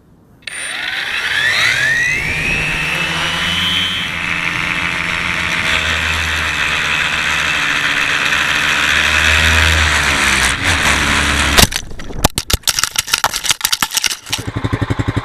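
An FPV tricopter's electric motors and propellers, heard from the onboard camera, spin up with a rising whine and run steadily in flight. The sound cuts out suddenly about three-quarters of the way in as the craft drops out of the sky, and a flurry of knocks follows as it crashes. A fast, even clicking runs after that to the end.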